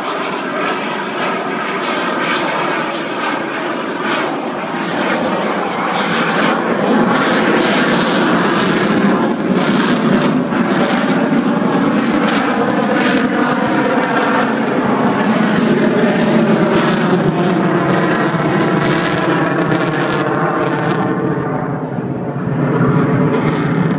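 Jet noise of an RAF Eurofighter Typhoon's twin EJ200 turbofans as it flies its display, loud throughout, with a ragged crackling from about seven seconds in to about twenty, easing off near the end.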